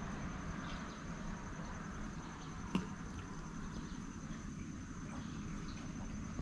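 Quiet outdoor ambience: a steady low rumble like wind on the microphone, with a faint steady high whine throughout and one light click a little under halfway through.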